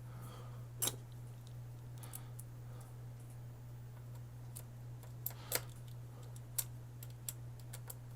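Small console parts and screws being handled and fitted by hand: scattered sharp clicks and taps, the loudest about a second in and a cluster around five and a half to seven seconds in, over a steady low hum.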